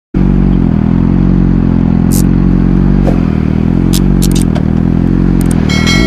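Motorcycle engine idling steadily, with a few light clicks over it.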